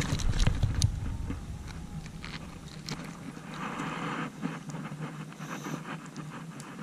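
Handling noise and low wind rumble on a body-worn camera microphone, with a few sharp clicks in the first second, then a softer rustling hiss.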